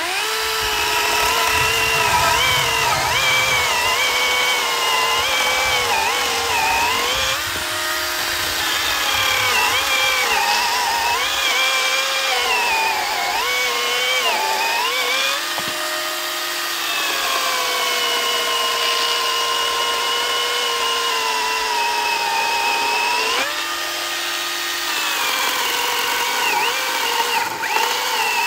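Cordless battery-powered electric chainsaw cutting through a log: a steady motor whine whose pitch sags and wavers as the chain bites into the wood, and rises back a few times as the load eases.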